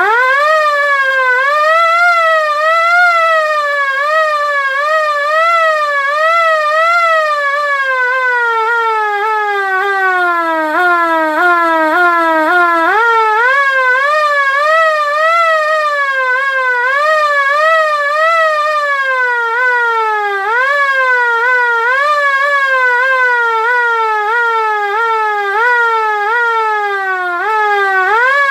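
LK-JDW105 air raid siren wailing loudly in a fast warble, its pitch jumping up sharply and sliding back down about once a second. Near the middle the whole tone sinks lower over several seconds, then climbs back up and carries on warbling.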